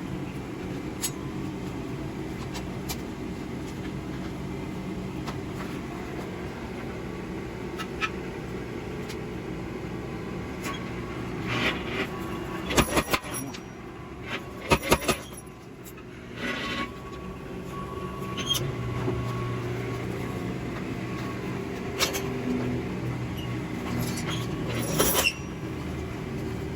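A steady motor drone in the forge shop, with scattered sharp metallic clanks and knocks, including tight clusters about halfway through.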